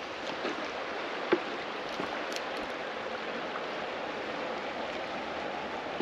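River water rushing steadily past, with a single light knock about a second in.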